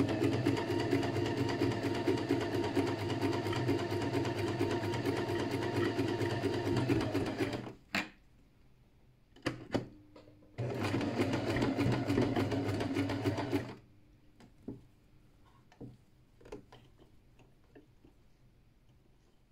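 Electric sewing machine stitching at a steady fast pace, stopping about eight seconds in, then running again for about three seconds. Between and after the runs there are a few light clicks.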